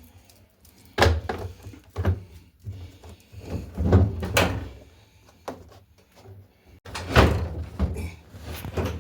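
Clunks and knocks from the drum and new suspension rods of a Defy top-loader washing machine being handled and fitted: several separate thumps, the loudest about four seconds in and about seven seconds in.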